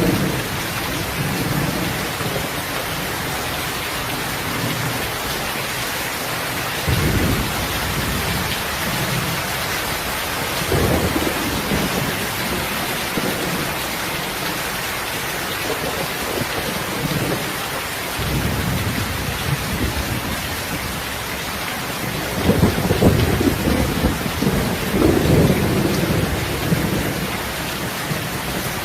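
Steady rain falling, with several low rumbles rising out of it; the longest and loudest comes near the end.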